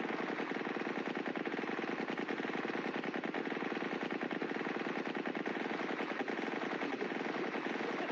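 Continuous rapid machine-gun fire from a quad mount of four .50 caliber Browning heavy machine guns: an unbroken stream of shots at an even pace, with no pause.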